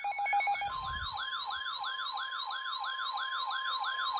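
Electronic siren-like alert tone, a falling yelp repeating about three times a second, joined less than a second in by a steady single-pitch tone, the NOAA Weather Radio warning alarm tone. The tone signals that a warning broadcast, here a flash flood warning, is about to follow.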